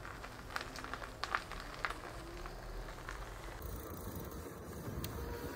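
A few sharp clicks and knocks in the first two seconds, then a low rumbling noise from about three and a half seconds in.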